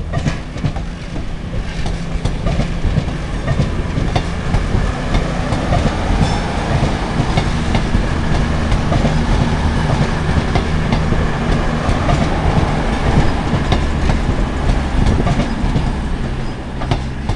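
CrossCountry Voyager diesel multiple unit running through at speed: a steady diesel engine drone under the rush of wheels on rail, with repeated clicks of wheels over rail joints.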